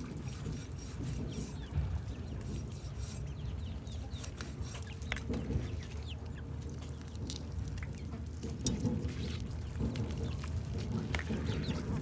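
Live chickens clucking now and then in the background. Over them come the rustles and small clicks of a plucked chicken carcass being pulled apart by hand on a plastic sheet.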